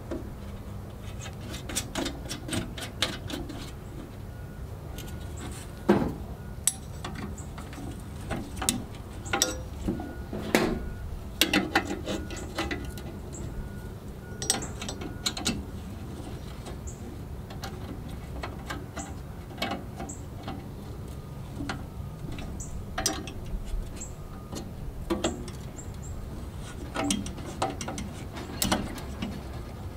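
Stainless steel grill parts and hand tools clicking, tapping and clinking as the lid is fitted onto the grill box and its hinge nuts and bolts are tightened with a wrench. A quick run of clicks comes near the start, and several sharper metal knocks fall around the middle.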